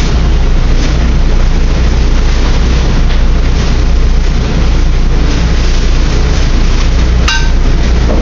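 Loud, steady roar of a commercial kitchen's exhaust hood fans and running equipment, with a low hum underneath. A single ringing clank of metal comes about seven seconds in.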